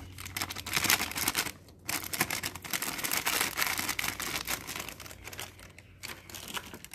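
Plastic spice packet crinkling in rapid crackles as ground cumin is tapped and shaken out of it, with a short pause about one and a half seconds in.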